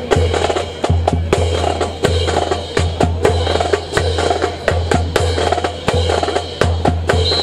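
Drill rifles slapped, swung and caught in a rifle drill, a rapid, uneven string of sharp wooden clacks mixed with stamping marching boots.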